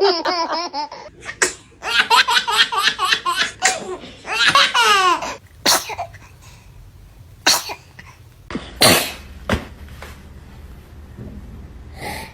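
Laughter, a small child's laughing among it, for about the first five seconds, then a few short, sharp sneezes a second or two apart from a toddler.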